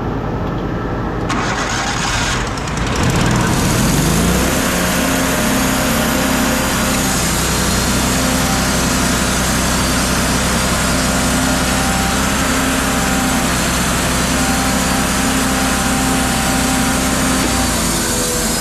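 Power saw spinning up over about two seconds, running steadily under load, then winding down near the end.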